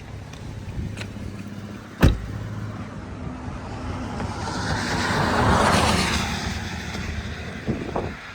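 Car running on the road, heard from inside the cabin: a steady engine and road hum, a sharp knock about two seconds in, and a rush of noise that swells and fades in the middle.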